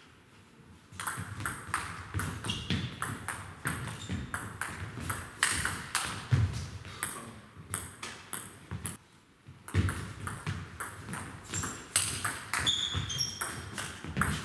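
Table tennis rally: the celluloid-style ball clicks rapidly back and forth off the paddles and table, then after a short pause a second rally starts. A few short high squeaks from shoes on the hall floor come near the end.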